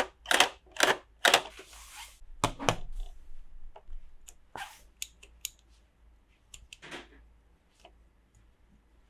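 Small plastic toy pieces and packaging being handled: a run of sharp clicks in the first second and a half, a short rustle, then scattered lighter clicks and brief rustles that thin out toward the end.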